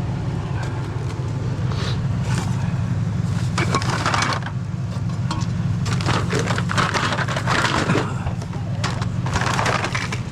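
Steady low hum of an idling vehicle, with several bursts of crunching and rustling about two, four, seven and nine seconds in.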